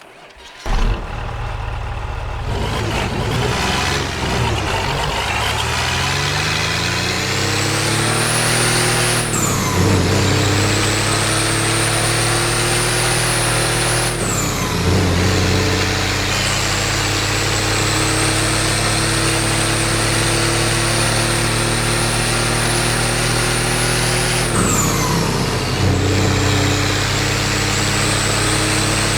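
Mercedes OM352 inline-six diesel engine starting with a sudden loud burst about a second in, then revving up in rising pitch. The revs drop sharply three times, and the engine holds a steady higher note between the drops.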